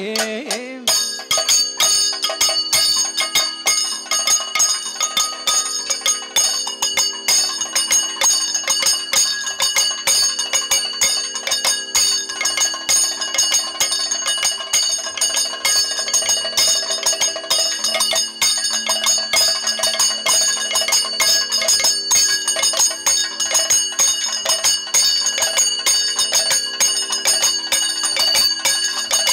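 Kathakali percussion for a danced passage: chenda and maddalam drums beating fast, dense strokes under the continuous ringing and clashing of bell-metal ilathalam cymbals.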